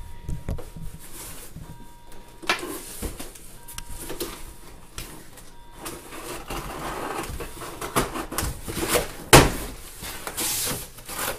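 A cardboard shipping box and its foam packing being shoved and scraped while a tightly packed reptile enclosure is pushed out of it, with scattered knocks and one heavy thump about nine seconds in.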